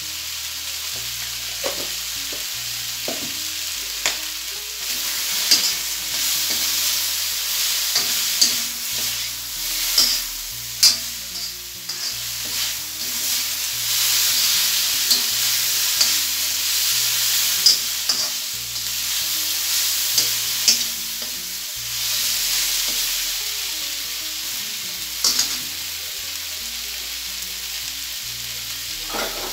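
Goat meat sizzling as it fries in a wok, stirred with a long metal spoon that scrapes and clicks against the pan now and then. The hiss swells and eases as the meat is turned.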